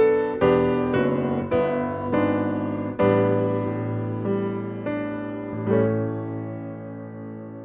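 Solo piano playing a slow piece. Chords are struck about twice a second at first, then about once a second. The last chord, about six seconds in, is left to ring and fade.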